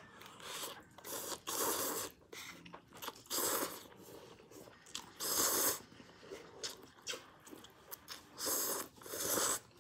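A person slurping instant ramen noodles off chopsticks: several short, hissy sucking slurps, with chewing in between.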